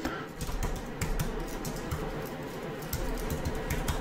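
Typing on a computer keyboard: a run of quick, irregular key clicks, several a second.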